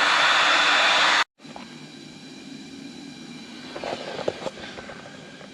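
Heat gun blowing steadily, a loud even hiss, as it heats an acrylic sheet for bending; the sound stops suddenly about a second in. After that there is a much quieter steady hum with a few light knocks of handling.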